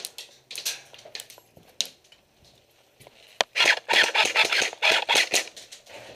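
Airsoft gunfire: scattered clicks and knocks, a single sharp crack a little after three seconds, then a rapid run of sharp pops, roughly seven a second, lasting about two seconds.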